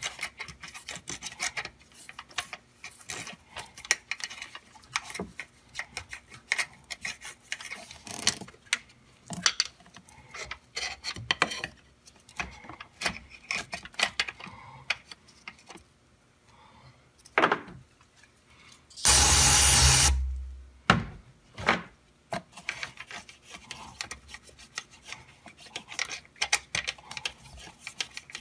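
A toothbrush scrubbing the gunk out of a car's metal throttle body: quick, uneven, scratchy rubbing strokes with small clicks. About two-thirds of the way in comes a loud hiss lasting about a second.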